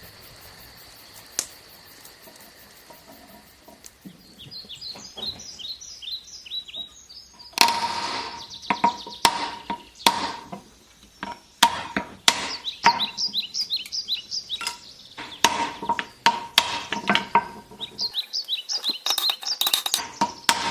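Small birds chirping in short falling calls, joined about seven seconds in by a long run of sharp knocks and strikes, irregular and several a second, that carry on while the birds keep singing.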